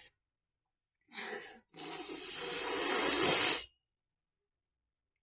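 A woman's short, noisy breath through the nose, then a longer hissing breath of about two seconds that swells slightly before stopping, as she tries to work up a sneeze that does not come.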